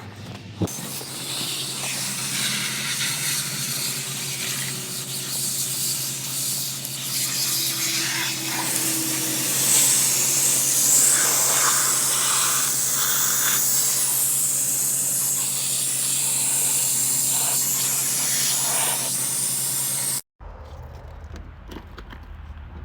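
Steady hiss of water spraying onto an iced-over outdoor HVAC unit to melt the ice off its coil, over a low steady hum; it cuts off suddenly near the end.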